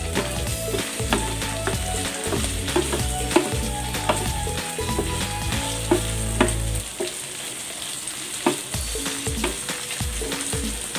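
Cubed chicken and mushrooms sizzling in a nonstick frying pan while being stirred with a wooden spatula, which scrapes and taps against the pan now and then.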